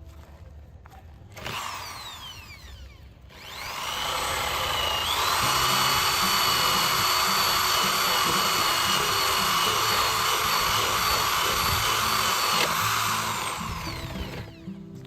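Electric hand drill running at speed: it starts about three seconds in, climbs to a higher pitch a couple of seconds later, holds steady and winds down near the end.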